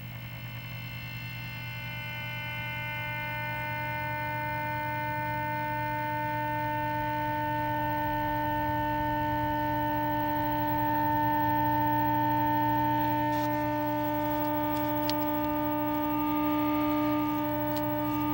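1960 Olympic vacuum-tube television's speaker giving a steady buzzy tone over a low hum, growing louder over the first several seconds, with a few faint clicks near the end. The sound is weak with the volume almost all the way up, the sign of a fault still in the set's audio section.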